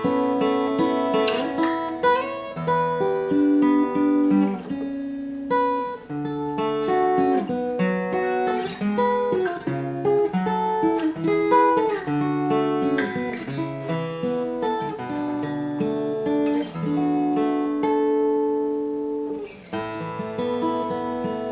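Furch Violet GC SM steel-string acoustic guitar, a cutaway with a solid spruce top and mahogany back and sides, played unaccompanied: a picked melody over bass notes and chords, with a brief pause and a fresh strummed chord near the end.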